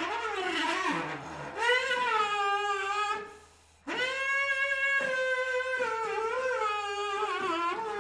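Euphonium played high with bending pitch: a wavering phrase, then a held note that swells and bends, a brief gap about three seconds in, and a long held note that wavers slightly and sags near the end.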